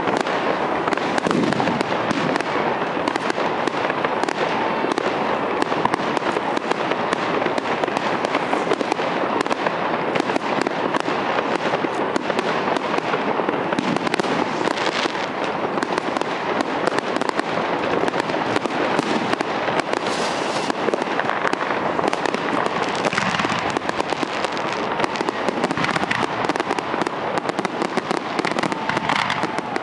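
Aerial fireworks display, a dense, unbroken run of crackling and popping shell bursts one after another.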